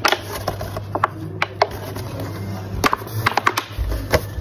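Thin plastic bottle crackling and clicking as it is handled and its cut edge pressed against a hot clothes iron to melt it smooth. Irregular sharp clicks sound over a low steady hum.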